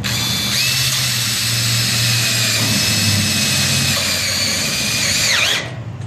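Cordless drill running steadily as it drives a sheet-metal screw through the seam of 20-gauge galvanized steel, a high whine that drops in pitch and stops near the end as the trigger is released.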